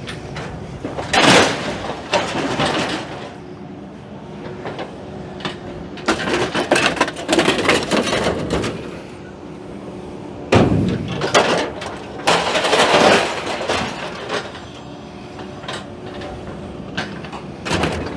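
Excavator crushing and tearing apart the sheet-metal body of an old International combine harvester: three loud bouts of crashing, crunching metal over the excavator's steady engine.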